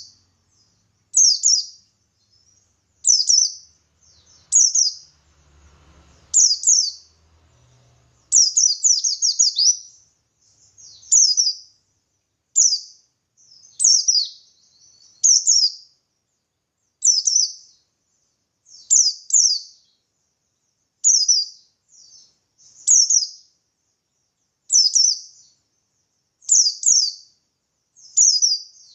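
Pleci buxtoni white-eye singing in the wild "ngalas" style: short, high chattering phrases of quick falling notes, repeated about every one and a half to two seconds.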